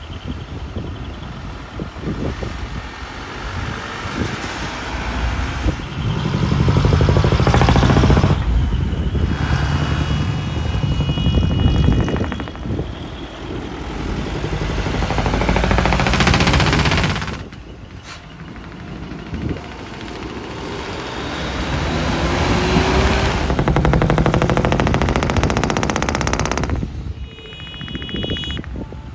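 Customised decorated trucks driving past one after another, each engine swelling loud as it passes and then fading. A short high-pitched tone sounds twice, about ten seconds in and again near the end.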